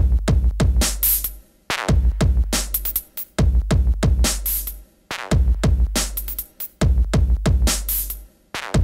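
Electronic music with a drum-machine beat and deep sustained bass notes, in phrases of about a second and a half that break off briefly and restart.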